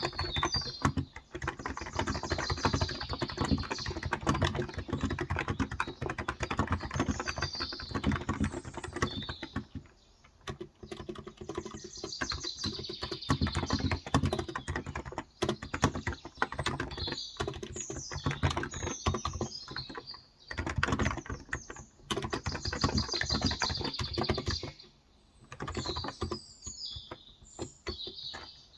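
Typing on a Cox Endeavor electro-capacitive (35 g, tenkeyless) keyboard: a fast, steady run of keystrokes with short pauses about ten seconds in and again near twenty-five seconds. Birds chirp in the background every few seconds.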